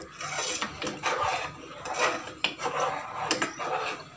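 Steel spoon stirring and scraping around a metal pot of thickening, reducing milk, in repeated scrapes about two a second with light metal clinks. This is the stirring that mixes condensed milk into the milk on a low flame.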